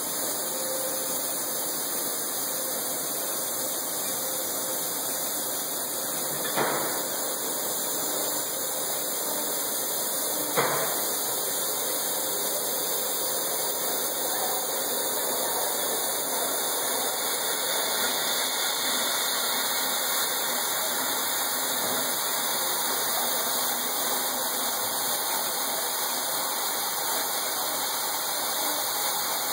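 Kuraki vertical machining center milling a metal block: the spindle and cutter run with a steady cutting noise. Two short knocks stand out, about a quarter and a third of the way in.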